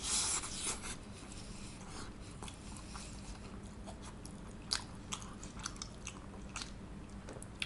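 Someone biting into a slice of pizza, the bite loudest in the first second, then chewing with faint scattered mouth clicks.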